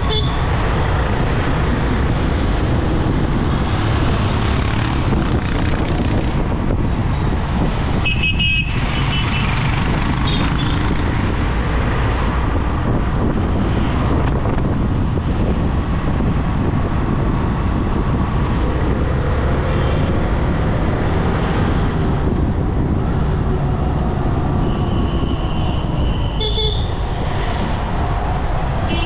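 Steady road and traffic noise from driving along a busy two-lane highway, broken by short vehicle horn toots: a couple about eight to ten seconds in, then a longer honk and a short one near the end.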